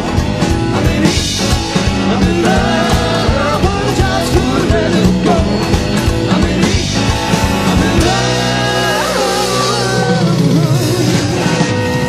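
Live rock and roll band playing a driving number: electric guitar, drums, keyboard bass and sung vocals. About eight seconds in the low beat drops away while a long wavering note is held.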